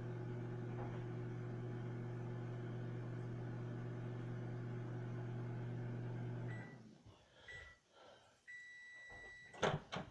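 Microwave oven running with a steady hum that stops about six and a half seconds in as its timer runs out, followed by a few beeps, the last one longer. A loud clack just before the end, the microwave door being opened.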